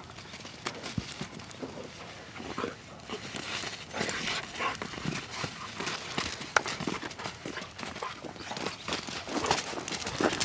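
A Doberman and a wolf play-fighting on dry dirt: irregular scuffling and thudding of paws and bodies, with dog noises mixed in.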